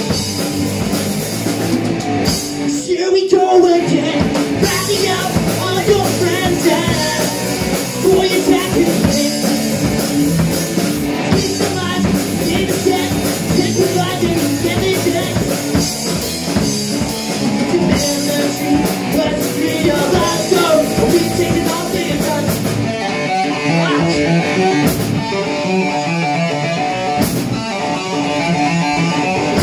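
A rock band playing live: distorted electric guitar, bass guitar and a drum kit, loud and continuous.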